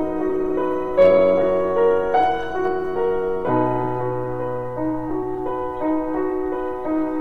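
Background piano music: a gentle melody of single notes over held chords, with a deeper bass note entering about three and a half seconds in.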